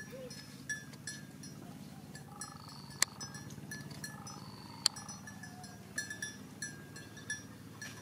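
Livestock bells clinking and ringing in short repeated notes. A few loud, sharp cracks of dry sticks come about three and five seconds in, as sticks are picked up and snapped.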